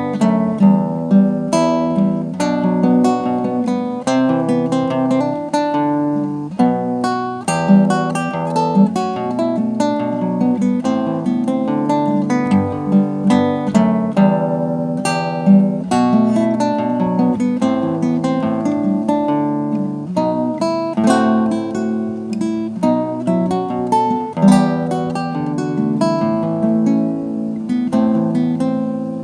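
Acoustic guitar playing an instrumental piece: a melody of plucked single notes over lower bass notes, with occasional strums.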